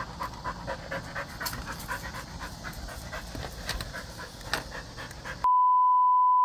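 A dog panting quickly and rhythmically. About five and a half seconds in, the panting cuts out and a loud, steady test tone takes over.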